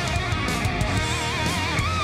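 Rock background music led by electric guitar. In the second half a held lead note wavers with a wide vibrato.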